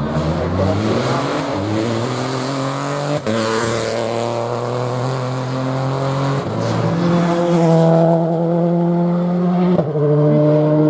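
Rally car accelerating hard through the gears, the engine note climbing and then dropping at each of three upshifts.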